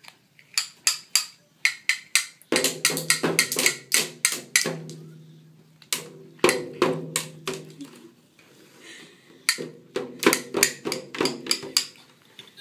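Child's plastic toy drum beaten with plastic drumsticks: several flurries of quick, uneven strikes with short pauses between, the drum head ringing low after the hits.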